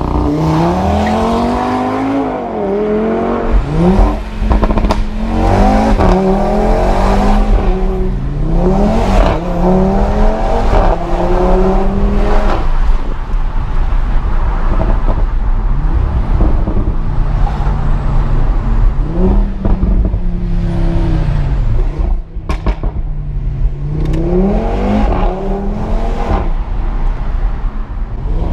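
Audi RS3 8V's turbocharged five-cylinder engine, through an RS sport exhaust with a Milltek bypass pipe, accelerating through the gears. Its note rises again and again and drops at each gear change, with a few sharp cracks.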